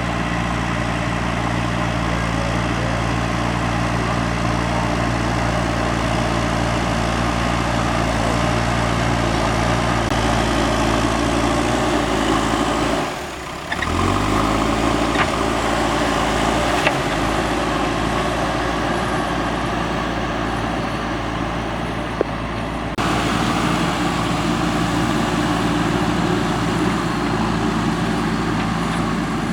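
JCB 3DX backhoe loader's diesel engine running steadily under work, with a brief drop about halfway through before it picks back up.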